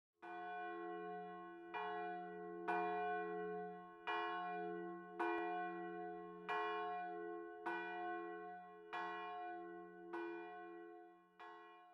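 A large bell tolling: about ten strokes of the same note, roughly one a second, each ringing on into the next over a steady low hum.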